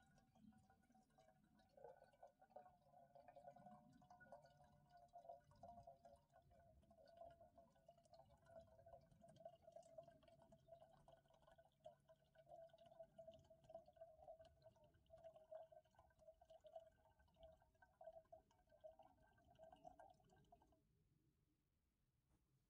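Faint, steady stream of water pouring into a container, cutting off abruptly near the end.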